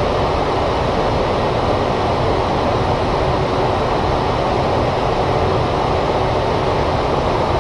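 Steady cockpit noise of a Boeing 747 in flight: an even rush of airflow and engine noise with no distinct tones.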